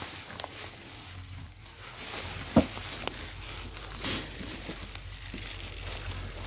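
Crested porcupine shuffling in straw inside a wire cage: rustling, with a few sharp knocks, the loudest about two and a half seconds in.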